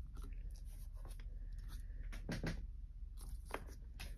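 Quiet room tone with a steady low hum, broken by a few faint rustling clicks about two and a half and three and a half seconds in.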